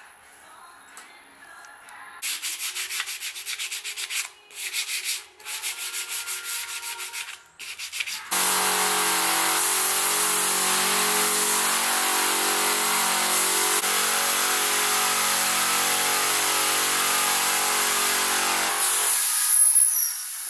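Wood being sanded: quick rasping strokes start about two seconds in, then a loud continuous abrasive noise with a low hum runs for about ten seconds and stops near the end.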